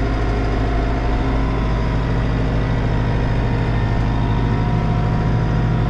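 Tractor engine running steadily, heard from inside the closed cab with a constant low drone.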